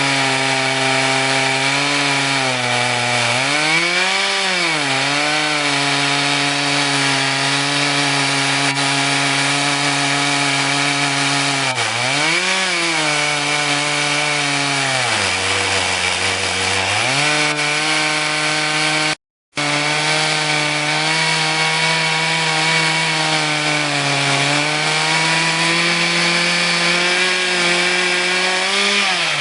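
Two-stroke chainsaw running steadily under load in a homemade chainsaw mill, ripping along a log. Its pitch rises briefly twice and sags for a couple of seconds past the middle as it bogs in the cut. The sound drops out for a split second about two-thirds through.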